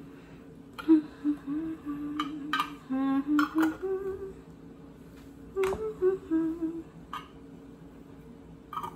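A woman humming a short tune in two phrases, the second after a brief pause, with a few scattered clicks and taps.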